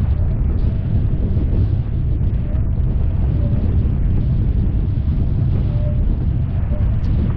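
Wind buffeting the microphone with a steady low rumble, over the rush and spray of water off the hulls of a Nacra 15 catamaran sailing at speed.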